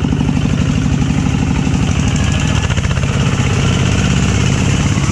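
Small motorbike engine running steadily with a rapid, even firing pulse. The engine note shifts slightly about two seconds in.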